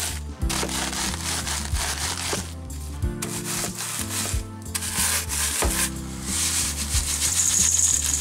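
Soda crackers in a plastic zip-top bag being crushed under a tin can rolled and pressed against the countertop: a gritty rubbing crunch.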